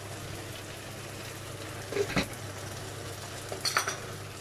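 Metal cookware clinking twice, about two seconds in and again near the end, as the lid goes onto a stainless steel soup pot, over a steady low hum.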